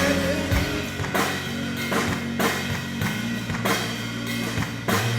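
Live band playing an instrumental passage between vocal lines: a drum kit keeping a steady beat of about two hits a second over bass and guitar.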